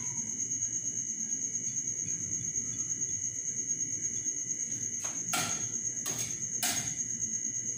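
A steady high-pitched trill runs throughout, with four short scraping sounds about five to seven seconds in.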